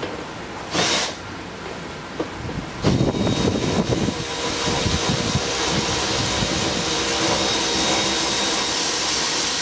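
Cordless power driver backing out the second of the door panel's Torx 30 bolts. The motor runs in a short burst about a second in, then from about three seconds runs steadily with a high whine, rough for its first second.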